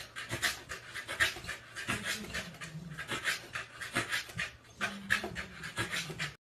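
A corgi panting quickly and rhythmically, about four breaths a second, with a short pause a little past the middle.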